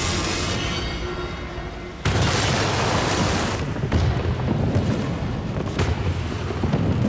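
A sudden heavy explosion about two seconds in, a gunpowder blast set off by a burning fuse, followed by a long low rumble, under dramatic background music.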